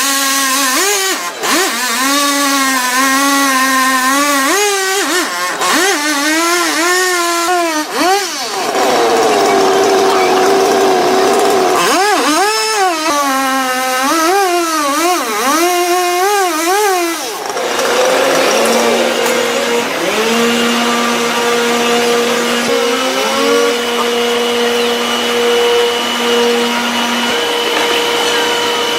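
Chainsaw engine revving and sagging as it cuts, its pitch wavering up and down about twice a second, with a brief steadier high rev in the middle. In the last third the tone settles into a steady, even running note.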